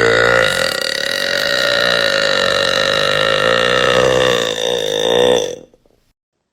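A woman's single long, loud burp, about six seconds long, held at a steady pitch and dying away near the end. It is heard through voice-chat audio.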